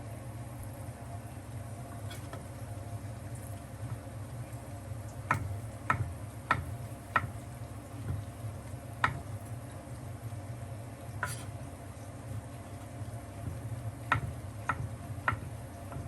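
Light sharp clicks or taps over a steady low hum: first a run of four evenly spaced a little over half a second apart, then two single ones, then three more at the same spacing near the end.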